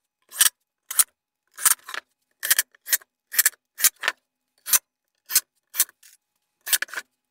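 Cordless drill driving screws into the wooden boards of a nesting box, heard as a quick run of short bursts, about two a second, with silence between them.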